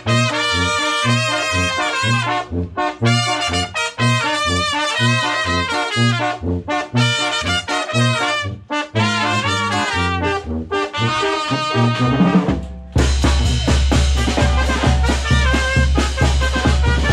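Mexican banda brass band playing: trumpets and trombones carry a melody over an alternating bass line with drums. About twelve seconds in it cuts abruptly to different music with a heavy, steady bass.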